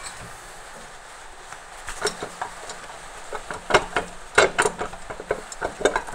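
Scattered metallic clicks and knocks as the valve cover of a DW12 2.2 HDi diesel engine is worked loose and lifted off the cylinder head. They start about two seconds in, with the loudest knocks a little after the middle.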